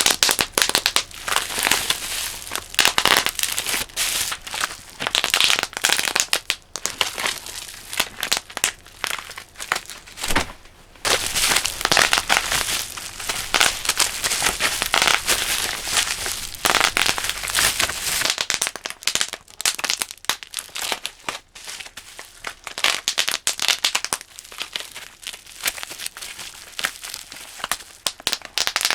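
Plastic bubble wrap crinkling and popping as it is crushed by hands in thick rubber gloves: a dense run of rapid pops and crackles, with a brief lull about ten seconds in.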